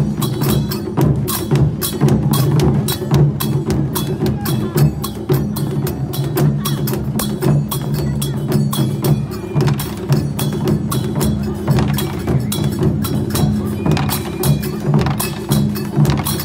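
Music driven by fast, continuous percussion, with dense strikes over a sustained low tone.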